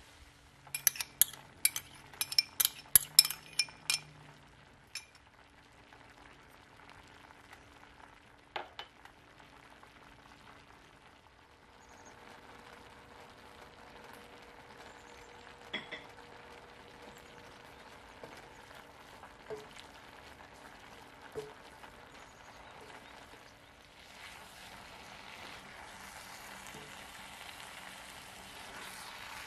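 Stir-fry cooking in a wok: a quick run of a dozen or so sharp clinks in the first few seconds, then a few scattered single taps. Near the end a steady frying sizzle with stirring sounds starts as the noodles are tossed with the beef and vegetables.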